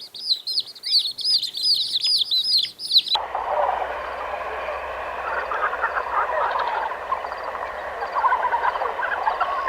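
A bird chirps quickly and repeatedly in high, down-sweeping notes. About three seconds in, the sound cuts abruptly to a busier jumble of lower bird calls.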